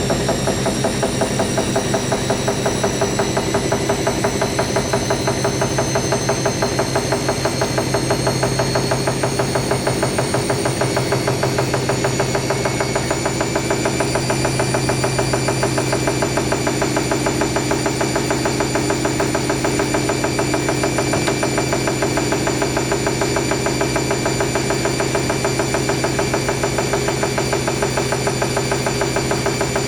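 Hoover NeXtra HNL3146 washing machine on its final spin, the motor whining and slowly rising in pitch over the first half before holding steady, with a rapid regular beat from the drum, whose load is a bit unbalanced.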